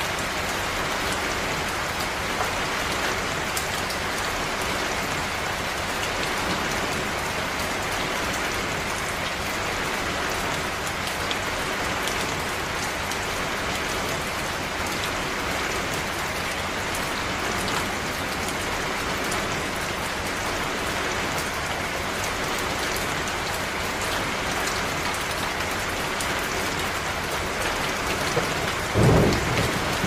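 Steady rain falling, an even hiss with scattered drop ticks. About a second before the end, a sudden loud clap of thunder breaks in and rumbles on.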